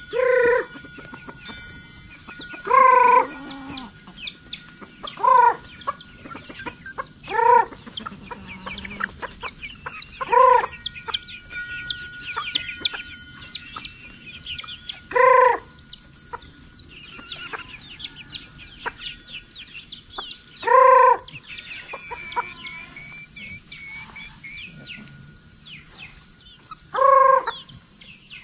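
A man calling chickens with a short, high-pitched call, repeated about eight times at gaps of two to six seconds, while the gathering hens cluck and peep. A steady high-pitched drone runs underneath.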